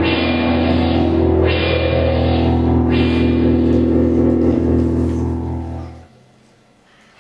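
Loud rock-style music cue with electric guitar over a held low drone, cutting off abruptly about six seconds in.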